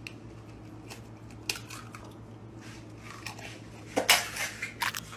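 A few short clinks and knocks of hard objects, the loudest about four seconds in, over a low steady hum.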